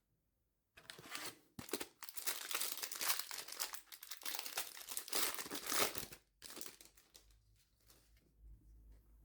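Foil wrapper of a trading card booster pack crinkling and tearing as it is handled and ripped open. It starts about a second in and stops about six seconds in.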